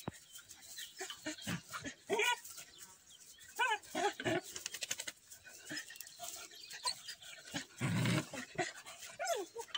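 Young dog whining in short cries that waver up and down, several times over, with a louder rough noise about eight seconds in.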